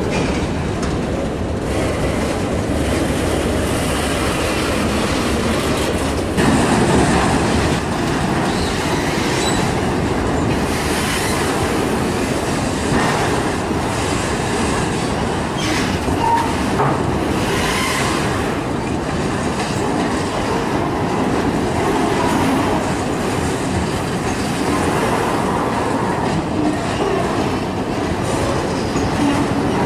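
Autorack freight cars rolling past close by: a steady rumble of wheels on rail with the clickety-clack of wheels passing over rail joints.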